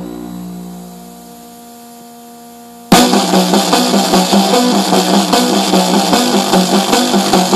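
Music played loud through a 700-watt aftermarket car stereo with a subwoofer: a held synth chord fades away, then about three seconds in a rock track with drums, bass and guitar kicks in suddenly.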